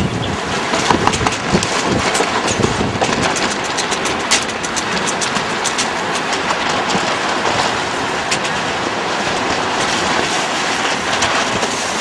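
Sailing dinghy in very strong wind: loud, steady wind noise on the microphone with water splashing and many irregular sharp knocks and slaps.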